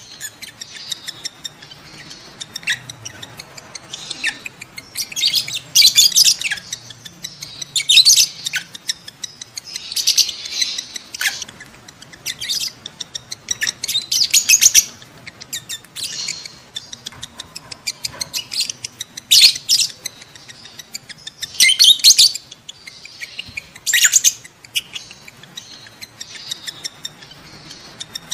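Lovebird calling: loud bursts of shrill, rapid chattering chirps every couple of seconds, with softer ticking chatter between them. These are the mating calls of a lovebird in breeding condition.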